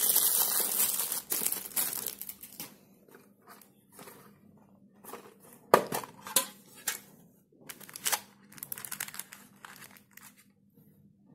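Clear plastic wrap crinkling as it is pulled off a small metal tin for the first two seconds or so. Then come scattered clicks and light knocks of the tin's lid being opened, the sharpest click a little before six seconds in.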